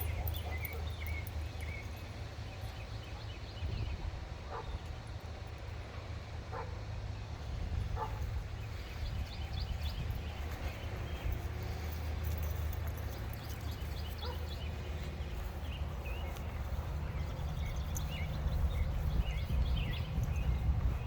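Dogs moving about and playing outdoors, with a few brief knocks and faint short high sounds over a steady low rumble.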